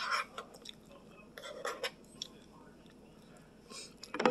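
Eating sounds: a spoon scraping and scooping fried rice on a plate in a few short scrapes, with a bite taken and chewed near the end.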